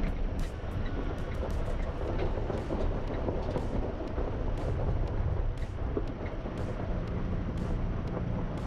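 A 4x4 driving along a loose gravel dirt trail: a steady rumble of tyres on gravel and the running engine, with scattered sharp clicks of small stones and rattles.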